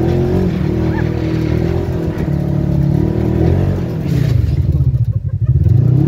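Polaris RZR side-by-side's engine running under way off-road. Its revs rise and fall with the throttle, dropping and climbing back about four seconds in.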